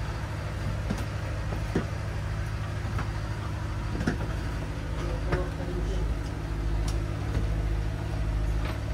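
Ship's diesel engine-room machinery running with a steady low hum, heard inside the engine room.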